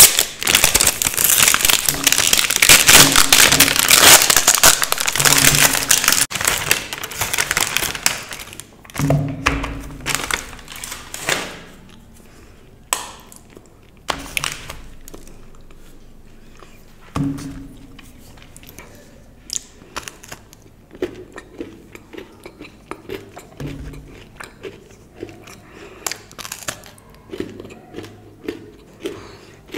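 Plastic chocolate wrapper crinkling loudly as it is handled and torn open for about the first eight seconds. This is followed by a few sharp snaps as a white chocolate bar is broken into pieces. Softer bites and chewing of white chocolate come near the end.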